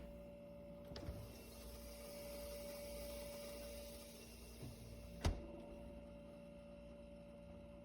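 Low steady hum with a faint hiss, broken by a few small clicks and one sharp click about five seconds in.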